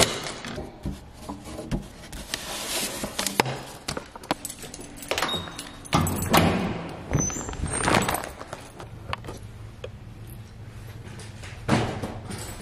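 Metal cluster mailbox being handled: clicks and clanks of its small door, with the rustle of mail being pulled out. A heavier door thud comes near the end.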